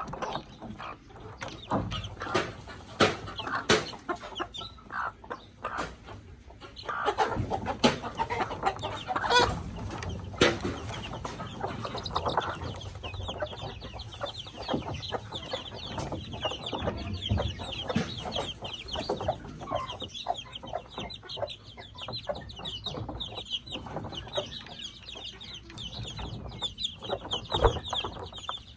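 A hen clucking among a brood of five-day-old chicks peeping continuously in high, short calls, with scattered sharp taps.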